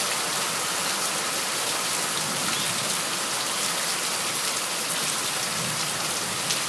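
Heavy tropical-storm rain pouring steadily and pattering on surfaces, a dense even hiss.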